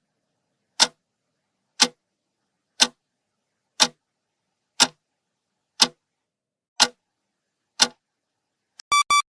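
Clock-tick sound effect counting down the answer time, one sharp tick each second. Just before the end, a quick run of short, bright beeps signals that time is up.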